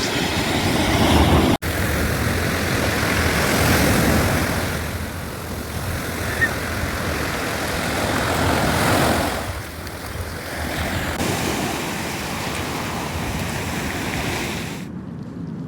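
Steady rushing noise of sea waves and wind, swelling and easing, with a momentary dropout about a second and a half in.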